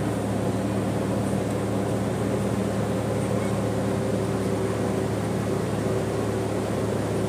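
Car engine idling steadily with an even low hum.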